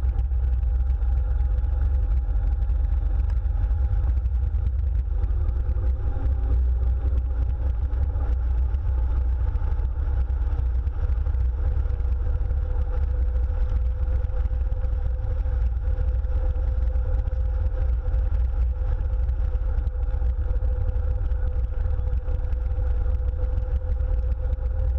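1907 Diatto A. Clément 25/35HP engine running steadily as the open car drives along at road speed, under a heavy low rumble of wind on the microphone.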